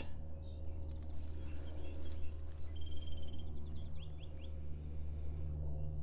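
Outdoor riverside ambience: a steady low hum with a few faint bird chirps, a short run of quick chirps about three seconds in and a few quick falling chirps just after.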